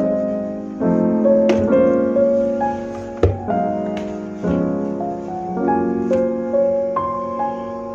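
Background piano music of held chords that change about once a second, with a few short clicks and a sharper knock about three seconds in.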